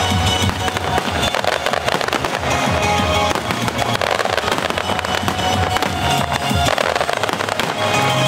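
Aerial fireworks shells bursting and crackling one after another, with music playing throughout.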